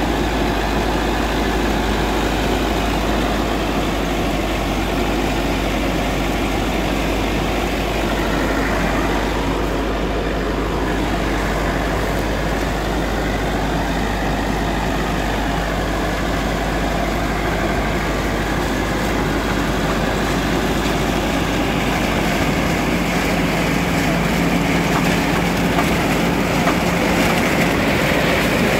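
IMT 577 DV tractor's diesel engine running under load as it drives a SIP Tornado 80 corn picker harvesting standing corn, engine and picker machinery making one steady noise. It grows a little louder near the end as the picker comes close.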